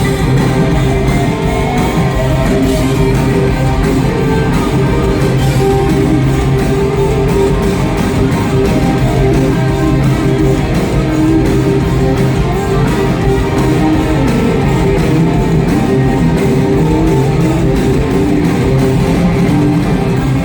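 Live rock band playing at full volume, with electric guitar to the fore over a steady bass and drums.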